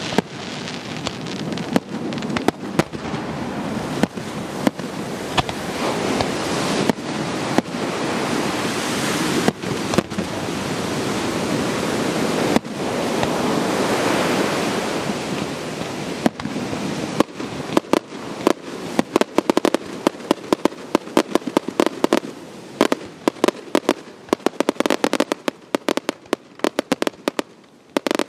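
Fireworks display: aerial shells bursting with a dense, continuous crackle. From a bit past halfway, a rapid string of sharp cracks and bangs takes over.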